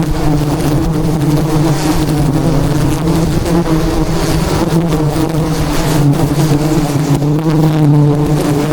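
A swarm of wild honeybees buzzing close by in one loud, steady drone.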